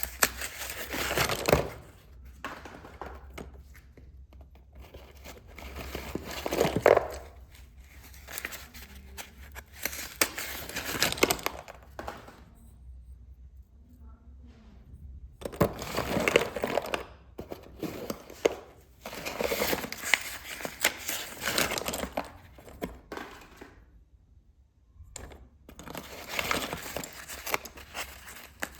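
Packaging of a box of slate pencils being unwrapped by hand: paper and plastic crinkling and tearing in repeated bursts, with short quiet pauses between.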